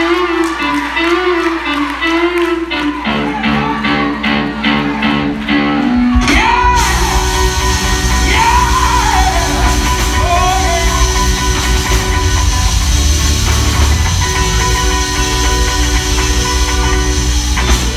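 A live gospel band plays in a large hall. Held, wavering chords come first; about six seconds in, the full band with drums and bass guitar comes in louder, and a singer's voice slides up and down above it.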